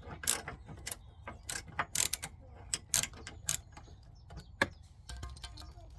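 Hand ratchet clicking in short, irregular bursts as car body bolts are worked loose.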